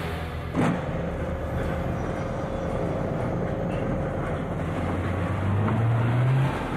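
A car running as it drives up, a steady engine and road rumble, with a sharp knock about half a second in and the engine pitch rising briefly near the end.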